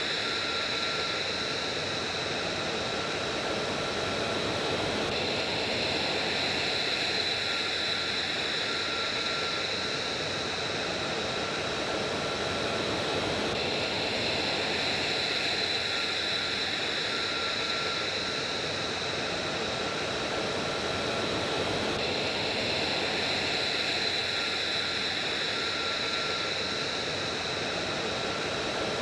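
Steady jet-engine rush with a high turbine whine over it. The same stretch of sound repeats about every eight and a half seconds, like a looped recording.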